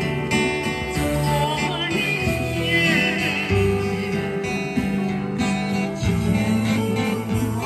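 Music: an acoustic guitar strummed along with a singing voice.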